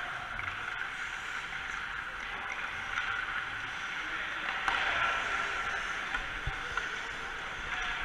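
Steady background hiss of an indoor ice rink during hockey practice, with skates and sticks on the ice, and a faint click about halfway through.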